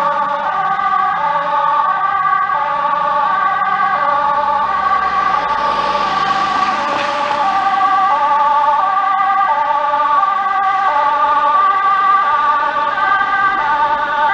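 Fire engine's two-tone siren, alternating between a high and a low note with each note held a little over half a second, over a steadier warbling siren tone. A brief swell of passing traffic noise comes about halfway through.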